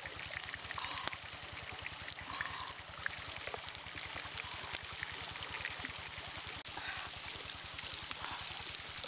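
Chicken giblets and unlaid egg yolks frying in a skillet of bubbling oil and juices over a wood fire: a steady sizzle with scattered small pops and crackles.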